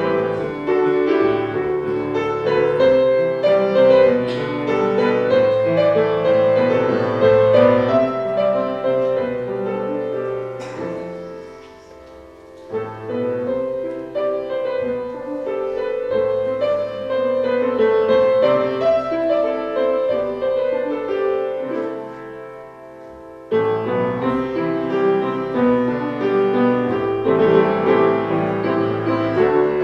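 Piano music. It dies away twice between phrases, then comes back in.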